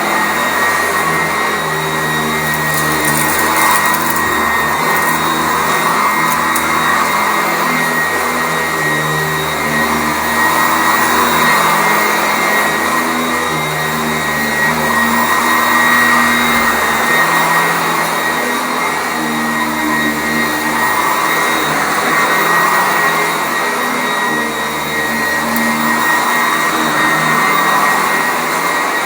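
Sanitaire SC899 commercial upright vacuum with a 7-amp motor running on carpet, a steady motor whine with a high tone, its lower hum coming and going every few seconds as it is pushed back and forth.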